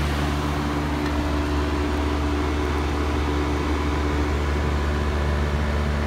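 Outdoor central air-conditioner condensing unit running: a steady hum from the compressor and condenser fan, with one of the low hum notes dropping away about a second in.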